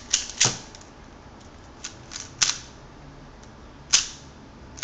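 A few sharp, separate plastic clicks and clacks, a speedcube being turned and handled in short moves rather than in a fast run of turns.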